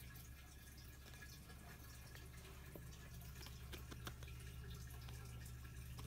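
Near silence: a low steady room hum with a few faint, scattered clicks.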